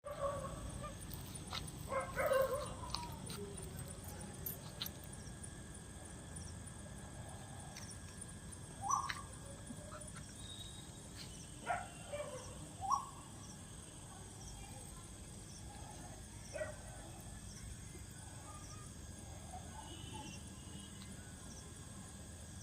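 Outdoor night ambience: a faint high insect-like tick repeating about once a second over a low steady hum, with a few short rising chirping calls.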